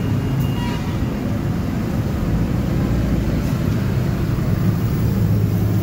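Steady low rumble of heavy jammed city traffic, with bus, car and motorbike engines running.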